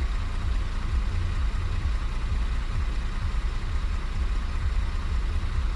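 Audi Q7's 3.0 TDI V6 diesel engine idling with a steady low rumble.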